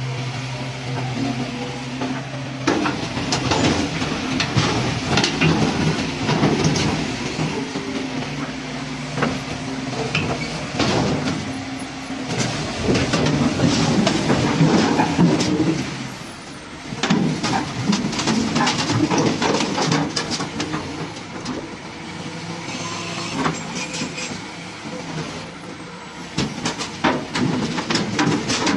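Diesel engines of large crawler excavators running, with repeated metallic clanks and rattles of steel. A steady engine hum at the start gives way to louder clattering about two and a half seconds in.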